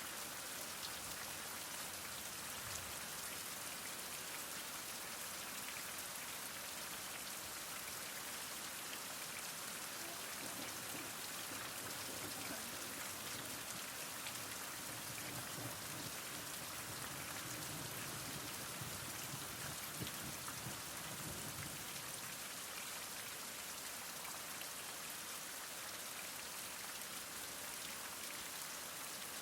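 Heavy rain falling steadily: an even hiss of rain with many individual drop impacts through it.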